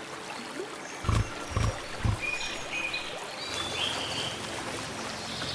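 Forest ambience at dawn with a steady hiss and short, high bird chirps starting about two seconds in. Three low, heavy thuds come in quick succession about a second in, the loudest sounds here.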